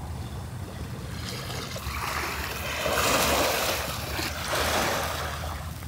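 Sea waves washing onto the shore, a steady rush of surf that swells louder twice, about two seconds in and again near the end.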